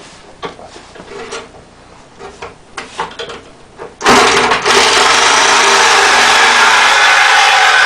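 A few light knocks and handling clicks, then about four seconds in a power saw starts suddenly and runs loud and steady, cutting through a vehicle's floor.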